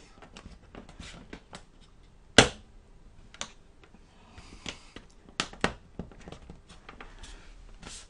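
Plastic bottom cover of a netbook being pressed on by hand, its clips snapping into place: a string of scattered sharp clicks with soft handling noise between them, the loudest snap about two and a half seconds in.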